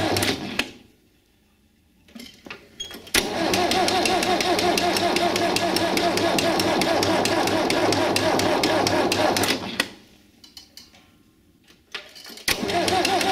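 A UTB DT445 tractor's diesel engine is running, then shuts down about half a second in and runs down to quiet. It fires up again suddenly about three seconds in and runs steadily with an even beat. It shuts down once more at about ten seconds and starts again near the end.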